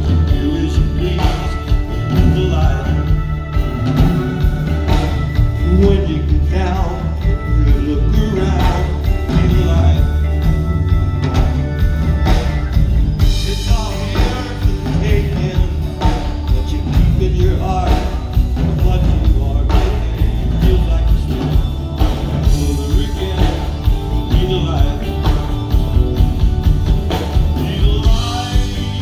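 Live rock band playing amplified through a PA, with a steady beat, bass and guitar, and singing at times.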